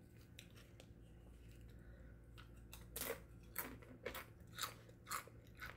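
Crunchy tortilla chips being chewed with the mouth close to the microphone. After a near-silent start, sharp crunches come roughly twice a second from about three seconds in.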